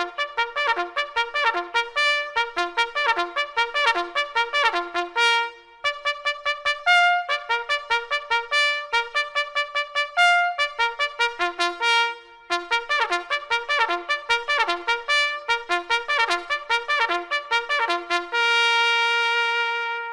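Intro music: a brass fanfare, trumpet-like, of quick short repeated notes with two brief breaks, ending on one long held note.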